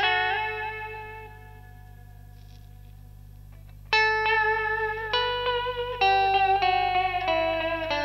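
Electric guitar played through a Madbean Dirtbaby PT2399 analog-style delay pedal set to a very short delay time for chorus/vibrato: a chord rings out and fades with a warbling, wavering pitch. About four seconds in, a new chord is struck and followed by further picked notes, all with the same wobbling modulation, over a steady low hum.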